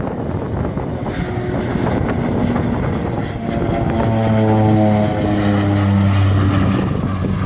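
Propeller aircraft passing close by, its propeller and engine tone swelling in about halfway through and dropping slightly in pitch as it goes past, over steady wind noise on the microphone.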